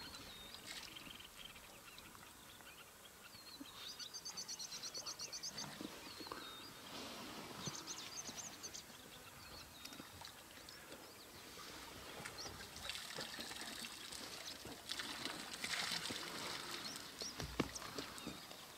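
African bush elephant drinking: faint trickling and pouring of water as it draws water up with its trunk. Birds call in the background, with a rapid high trill about four seconds in.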